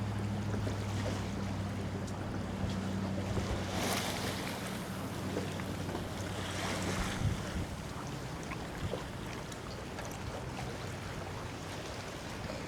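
Wind gusting across the microphone, swelling a couple of times, over a steady low hum that fades out about seven seconds in.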